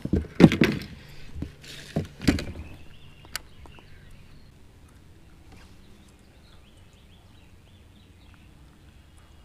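Knocks and thumps of handling on a plastic fishing kayak as rods and gear are moved about, a few loud bumps in the first couple of seconds and a sharp click soon after. Then quiet, with faint high chirps.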